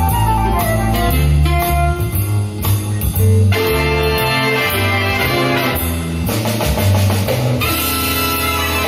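Live band playing an instrumental break with no singing: guitar over a walking bass line and drum kit.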